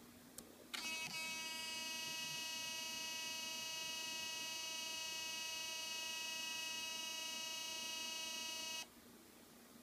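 Olympus OM-D E-M5 mirrorless camera making an abnormal steady, high-pitched whine of several tones after being switched on. The whine starts with a click just before it, holds for about eight seconds and then cuts off suddenly. The owner takes the noise for a defect in the camera.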